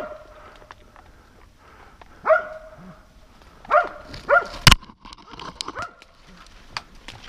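Hunting dog barking in separate single barks, baying a wounded wild boar hidden in the thicket. There is a sharp crack a little past halfway.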